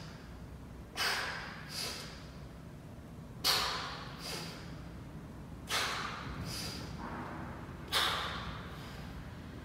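A man's hard breathing in time with dumbbell curl reps: four sharp breaths, each followed by a softer one under a second later, about one pair every two seconds.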